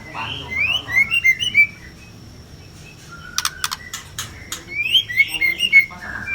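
Female white-rumped shama calling aggressively: clusters of short rising whistled notes and harsh chatter. There is a run of sharp clicks in the middle and the calling resumes near the end.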